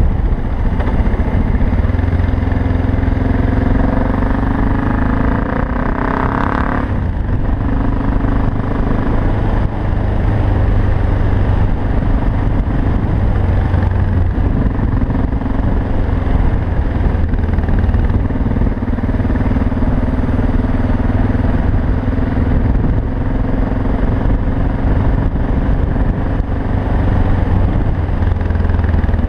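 BMW F 650 GS single-cylinder engine running steadily under way, with wind and road noise. Between about four and seven seconds in, its pitch rises as it revs, then drops away sharply.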